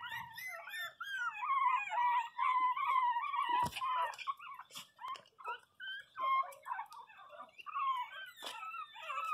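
Several pinscher puppies crying at once: high-pitched whines and whimpers overlapping, one cry held steady for about two seconds near the start. A sharp knock sounds about three and a half seconds in.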